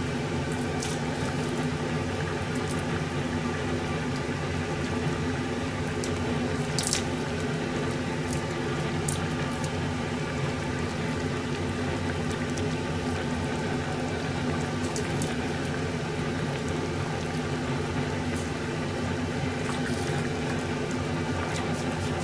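Steady kitchen hum with the low bubbling of a pot of fish simmering on the stove, and a few faint light clicks as garlic cloves are peeled by hand.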